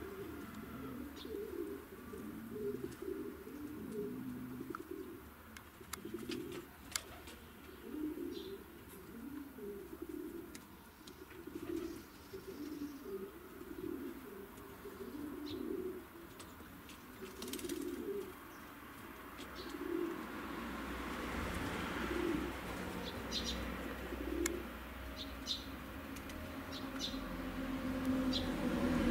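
Maltese pigeon cooing in a run of low, short coos, about one a second at first and more spaced out in the second half. Faint high chirps of small birds come in now and then, and a low rumble with a hiss swells near the end.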